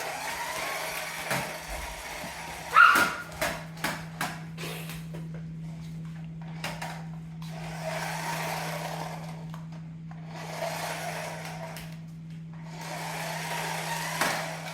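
Remote-control toy car's small electric motor whirring in spurts as it drives, stopping and starting several times. A few sharp clicks and knocks come about three to four seconds in.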